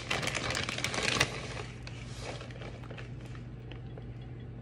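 Plastic bag of shredded cheese crinkling as it is shaken over the dish, stopping about a second in. After that there is a low steady hum and a few faint soft rustles.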